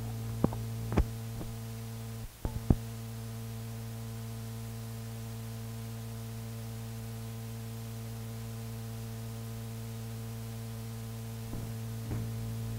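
Steady electrical mains hum on an old reel-to-reel tape recording. Several sharp clicks in the first three seconds and a brief dropout about two seconds in mark a place where the original recording was paused and restarted. A few fainter clicks come near the end.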